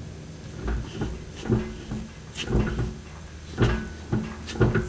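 Dull clunks from the rear wheel and driveline of a BMW E46 M3 as the raised rear wheel is twisted back and forth by hand: about seven knocks at uneven intervals of roughly half a second. They come from a little play in the rear wheels that the owner can't diagnose, and he wonders whether it is normal or a wheel bearing or guibo.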